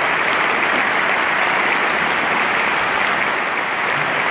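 Audience applauding steadily, a dense, even clapping, with the choir on stage clapping along.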